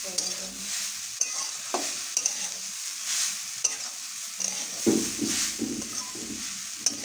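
Metal spatula stirring and scraping grated coconut around a steel kadai as it roasts, a repeated swish with each stroke. There are a few sharp clicks of the spatula against the pan and a stronger stroke about five seconds in.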